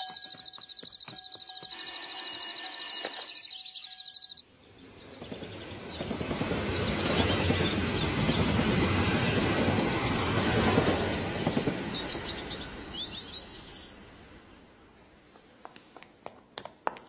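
Insects chirping in steady pulsed trills, cut off sharply after about four seconds. Then a passenger train passes, its rumble swelling over a few seconds, holding, and fading away.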